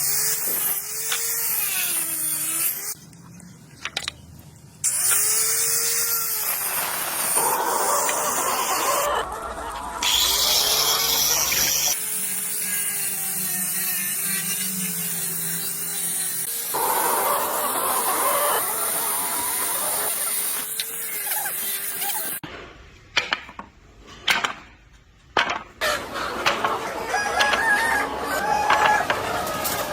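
A flock of chickens, mostly laying hens, clucking and calling, with drawn-out rising-and-falling calls. The sound changes abruptly every few seconds.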